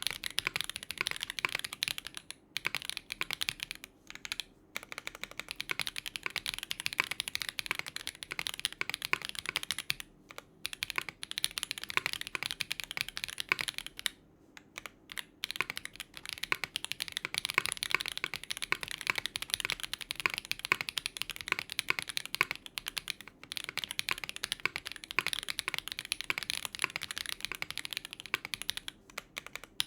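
Fast typing on a KBDFans Tiger80 Lite mechanical keyboard with a polycarbonate plate, stock Duhuk QK01 switches and GMK Norse keycaps: a dense run of key clacks broken by a few brief pauses.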